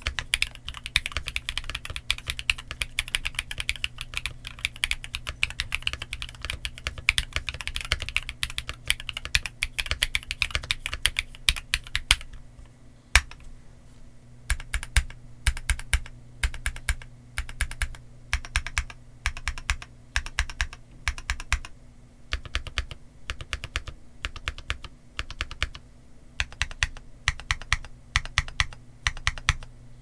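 Typing on a TKC Portico68 BL mechanical keyboard with Tecsee Eminence linear switches, slightly factory-lubed, and GJ Nautilus Cherry-profile keycaps. For about twelve seconds the keystrokes come fast and close together. After a brief lull with a single sharp keystroke, the presses come slower and separate, in small groups.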